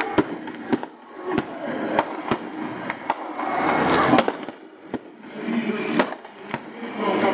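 Irregular rifle shots, blanks fired by battle reenactors: about a dozen sharp reports at uneven intervals over several seconds.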